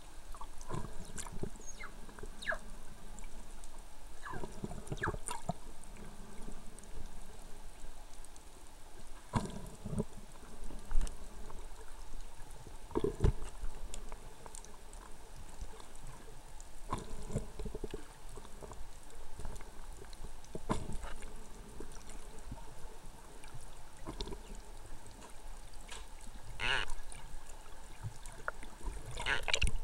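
Water and bubble noise heard underwater, with scattered clicks and knocks and a longer burst of bubbling near the end.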